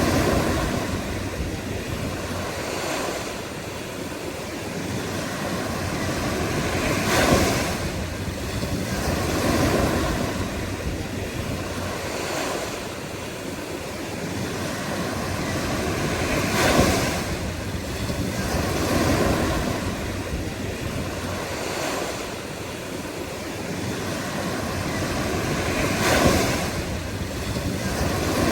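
Ocean surf: a continuous wash of breaking waves that rises and falls, with a louder wave crashing three times, about every nine to ten seconds.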